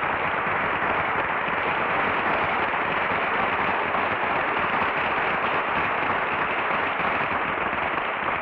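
Studio audience applauding, dense and steady, on a lo-fi 1949 radio broadcast recording with little top end.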